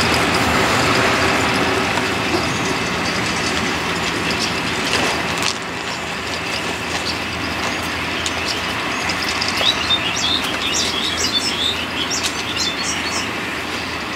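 Panchagarh Express passenger coaches rolling along the track and moving away, the noise slowly fading. From about the middle of the clip, birds chirp briefly over it.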